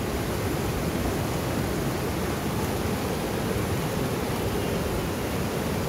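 Monsoon-swollen mountain river rushing over boulders in rapids: a steady, even wash of white water.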